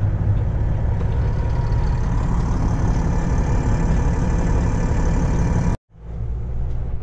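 Semi-truck diesel engine and road noise heard from inside the cab while driving: a steady low drone. It drops out abruptly for a split second about six seconds in, then carries on.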